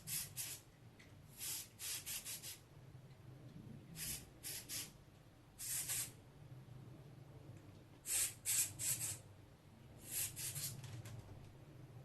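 Compressed air blown in short hissing bursts, mostly in quick groups of three or four, to blast leftover dirt out of a disassembled computer case fan.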